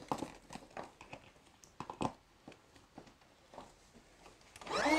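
Small clicks and knocks of the pump hose being fitted to an inflatable boat's valve, then near the end an electric air pump starts up, its hum rising quickly to a steady pitch as it begins inflating the bow chamber.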